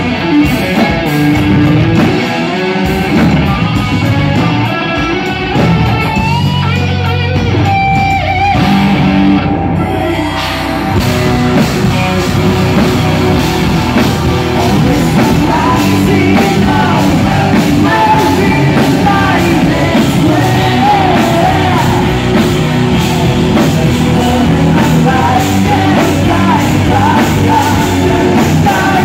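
Live metal band playing: electric guitar, bass and drums, with a woman singing over it from about halfway through.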